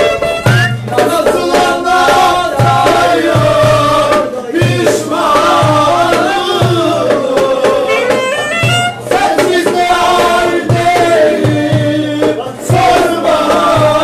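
Live Turkish folk dance music: a clarinet plays a bending, ornamented melody with a violin, over a darbuka beating a steady, regular rhythm.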